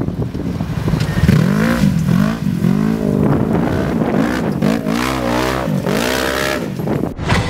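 Polaris RZR XP 1000's twin-cylinder engine running through an HMF dual full exhaust with quiet cores installed, revving up and falling back over and over, about six or seven swells, as the side-by-side is driven hard.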